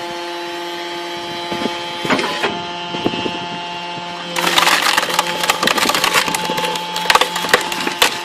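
Firewood processing machine running with a steady hum while a log is forced through its splitting wedge: a few sharp cracks about two seconds in, then dense splintering and crackling from about four seconds in as the wood splits apart.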